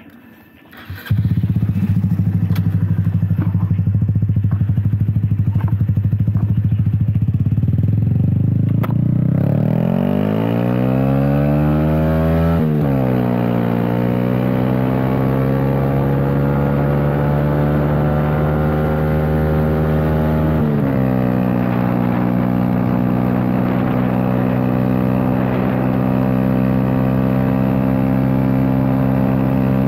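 Honda Grom's single-cylinder four-stroke engine, fitted with a performance cam and a 2 Brothers Racing exhaust, comes in loud about a second in and holds a steady note. It then accelerates with its pitch climbing, drops sharply at an upshift, climbs again through a second shift, and settles into a steady cruising note.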